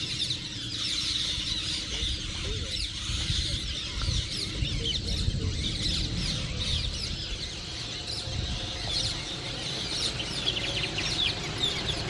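Many wild birds calling at once, a dense run of short chirps and whistles throughout, over a steady low rumble.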